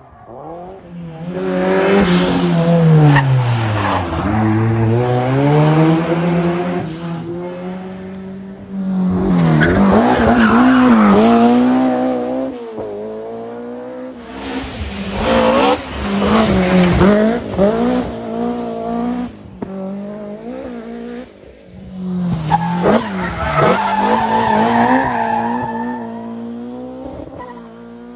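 Rally cars driven hard on a stage, passing in about four loud runs, with engines revving up and down through gear changes.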